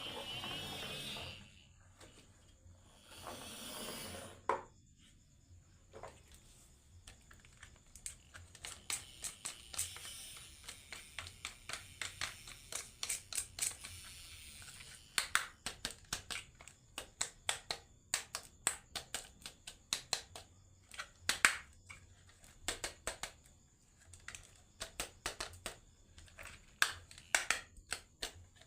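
Marbles clattering down a wooden marble run, making many sharp irregular clicks several a second. Two short rushing noises come in the first few seconds.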